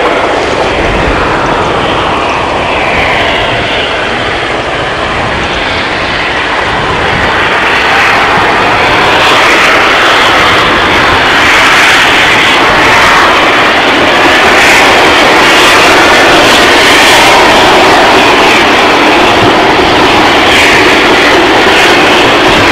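Steam locomotive working hard with a train, its exhaust a loud, steady rushing sound that grows louder about eight seconds in.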